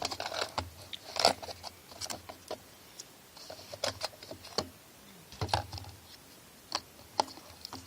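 Camping stove gear being handled: irregular light clicks and knocks of small parts being moved and set down, with a couple of duller thumps.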